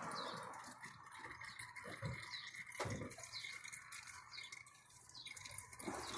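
Engine oil dripping from the oil pan into a plastic drain pan, a faint run of drips about once a second, with a single knock about halfway through.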